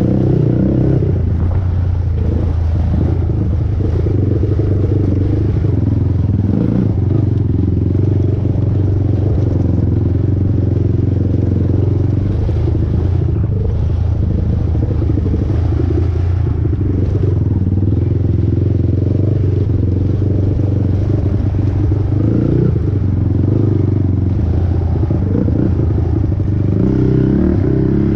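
Sport quad's 450 cc single-cylinder four-stroke engine running hard under load, its note rising and falling with the throttle as the ATV rides a rough dirt trail.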